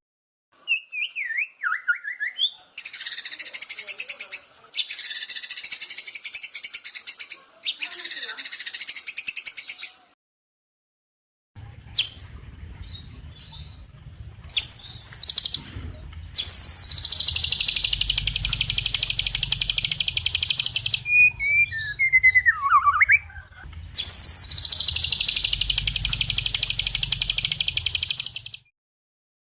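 Recorded songbird song: long, rapid, high trills lasting several seconds each, broken by short sweeping whistles. Abrupt cuts to silence between the spliced segments, and a low hum under the second half.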